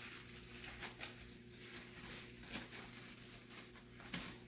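Faint rustling, crinkling and small clicks of packaging being handled as the revolver is unboxed, over a faint steady hum.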